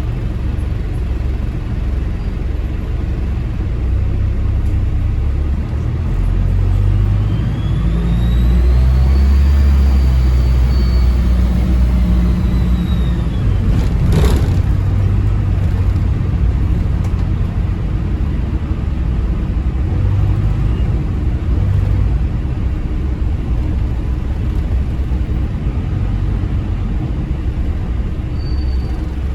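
Diesel bus engine pulling hard, its turbocharger whistle rising in pitch and then falling away as the engine note swells and eases. There is a single sharp click about halfway through, and a brief whistle again near the end.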